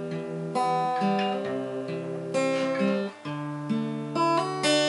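Steel-string acoustic guitar playing chords on its own, a new chord struck roughly every second and left to ring.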